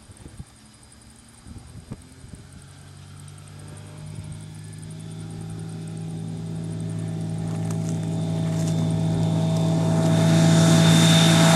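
Ultralight aeroplane's piston engine and propeller running at full takeoff power, a steady, even-pitched sound that grows steadily louder as the plane accelerates down the dirt strip toward the listener. A couple of small knocks come in the first two seconds.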